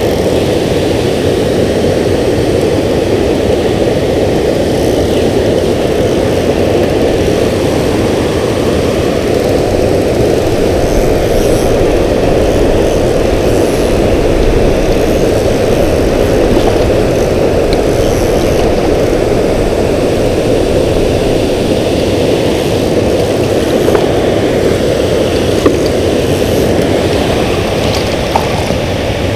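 Steady low rushing roar of water pouring over a dam spillway.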